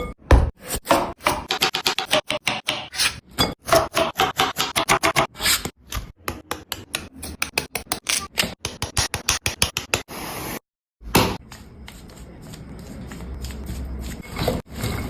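Knife chopping fruit on a cutting board in fast repeated strokes, several a second. After a short break comes a softer, steadier scraping sound that slowly grows louder.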